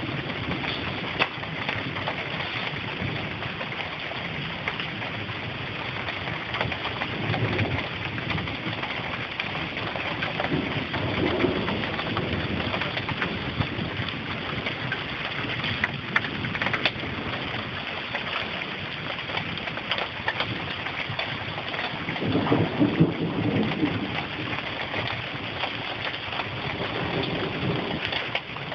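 Steady rain of a thunderstorm falling, with scattered sharp ticks of drops striking nearby surfaces. Several low rumbles of thunder swell and fade, the strongest about three-quarters of the way through.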